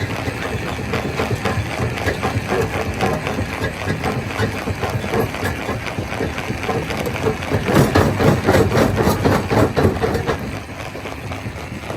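Stone crusher running: a steady machine hum under a dense, irregular clatter of rock being crushed, louder for a few seconds past the middle.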